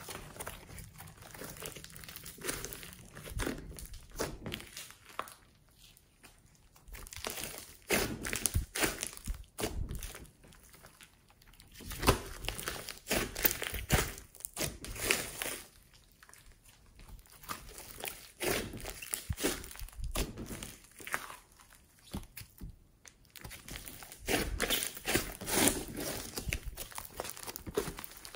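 Hands squeezing and folding a large lump of glossy slime mixed with foam slime and clay, giving dense runs of crackling clicks and pops in spells of a few seconds with short quiet pauses between.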